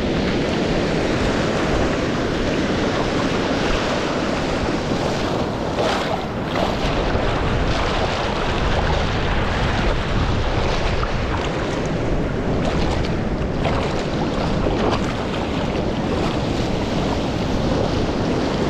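Ocean surf: shallow water washing and swirling over a reef close to the camera, with waves breaking farther out, as a steady rush with a few louder splashes. Wind buffets the microphone.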